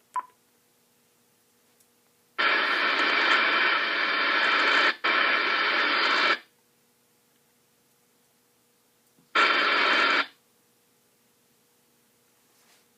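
Icom IC-7000 transceiver's receiver audio while scanning the band: a short beep, then the squelch opening on a loud burst of static-like hiss for about four seconds with a brief break in the middle, and another burst of about a second later, a sign of activity on the band.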